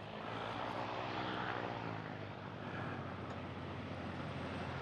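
RC rock crawler's motor and gearbox whining as it climbs rocks, the pitch rising and then falling with the throttle.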